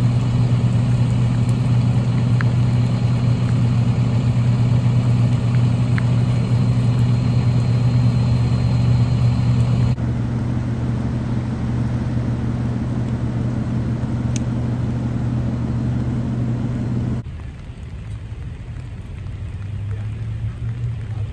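A truck's engine running steadily close by, a deep even hum that does not rise or fall. About 17 seconds in it cuts off abruptly to a much quieter steady background with only a faint low engine hum.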